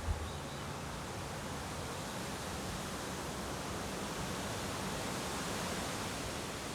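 Strong wind blowing: a steady rushing noise.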